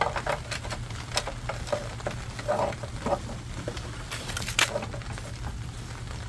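Light clicks and rustles of a plastic towing-mirror assembly and its wiring harness being handled and fed into a pickup's door, with two louder clatters around the middle. A steady low hum runs underneath.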